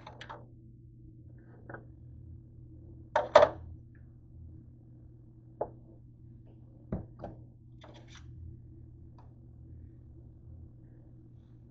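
Kitchen handling noises: a few short knocks and clinks as toast and utensils are handled on the counter and a metal sheet pan, the loudest a quick double knock about three seconds in, over a steady low hum.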